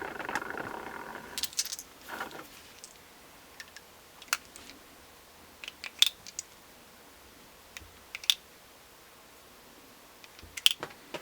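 .38 Short Colt cartridges dropping one at a time into the chambers of a .357 revolver cylinder, each landing with a sharp metallic click, about six in all, after a short rattle of the brass in hand at the start. They drop in freely, a sign that the bulges that kept them from chambering have been ironed out by a Lee Factory Crimp Die.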